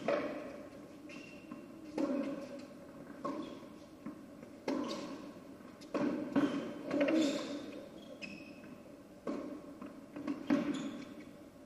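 Tennis rally: ball struck by rackets and bouncing on the court, a sharp hit every second or so, each echoing in the indoor arena.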